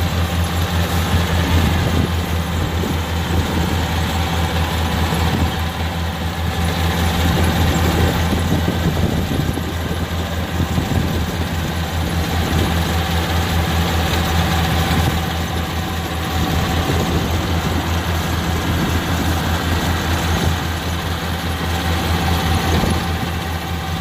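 Kubota R1-551 rice combine harvester running steadily under load as it cuts and threshes: a constant low diesel engine hum with a dense mechanical clatter over it, swelling and easing a little as the machine moves along.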